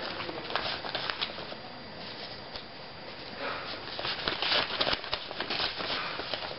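Paper envelopes and sheets of mail rustling and crinkling as they are handled and leafed through, in quick irregular rustles that get busier about halfway through.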